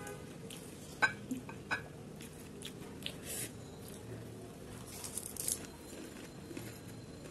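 Crisp fuchka (pani puri) shell crunching as it is bitten and chewed, in a few short crunches. A few sharp clicks come about a second in.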